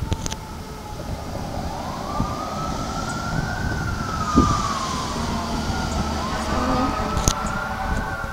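Emergency vehicle siren wailing, slowly rising and falling in pitch.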